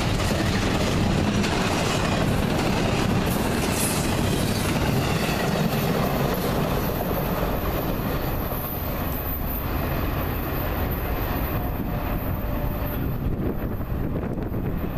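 Double-stack intermodal freight train's cars rolling past, steel wheels running on the rails in a steady rumble. Its highest sounds thin out over the last few seconds as the end of the train moves away.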